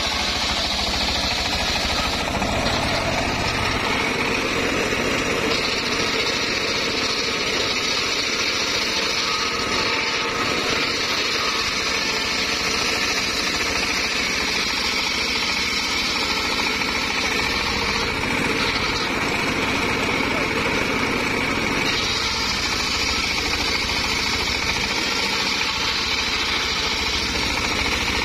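Homemade engine-driven circular saw bench ripping a log lengthwise: the engine runs steadily under load while the blade whines through the wood, the whine changing a few times as the cut goes on.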